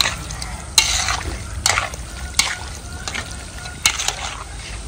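Metal spoon and chopsticks stirring syrup-coated pomelo pith pieces in an aluminium pot. There is a wet, sticky squishing and a series of irregular clinks and scrapes against the pot.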